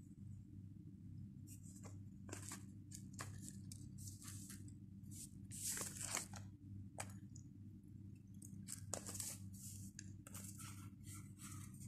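A Pringles can being handled and opened close to the microphone: short crinkly, tearing rustles, the longest and loudest about six seconds in. A steady low hum runs underneath.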